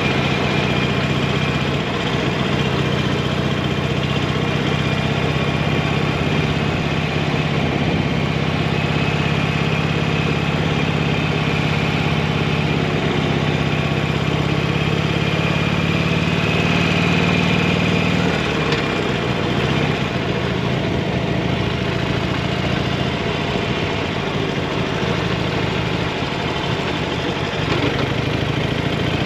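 Motorcycle engine running steadily, its even note changing and breaking up about two-thirds of the way through.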